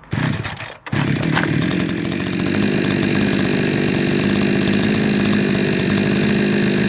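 Charles Jacobs 58cc two-stroke chainsaw engine started by pull cord with the choke off. A short burst is heard first, then it catches about a second in and settles into a steady idle, which is slightly fast.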